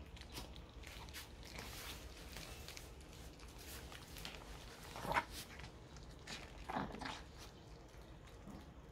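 Chihuahua gnawing a chew stick, with small clicking chews throughout and two short growls, about five and about seven seconds in; the first is the louder.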